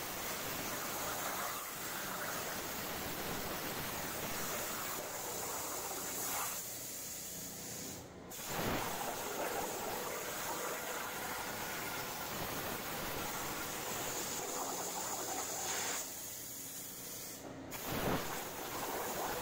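Hypertherm Powermax85 plasma cutter on a CNC table, arc cutting through steel plate with a steady hiss. The hiss breaks off briefly twice, about 8 and 17.5 seconds in, and starts again each time.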